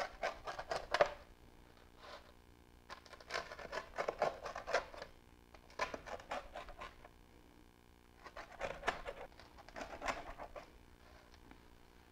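Rolling pizza-cutter wheel slicing through a super-thin, crispy bar-pie crust, crunching and crackling in several separate cuts with short pauses between them.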